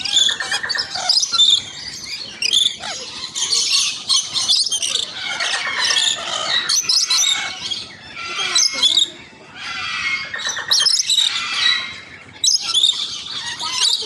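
A flock of lories and rainbow lorikeets screeching and chattering, with many harsh high calls overlapping almost without a break.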